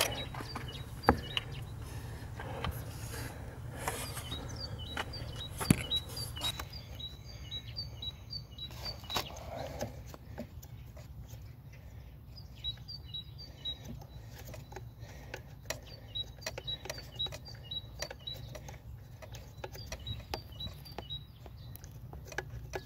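Scattered light clicks and knocks of hand-tool work on a car engine, over a steady low hum. Short runs of faint high chirps repeat through it.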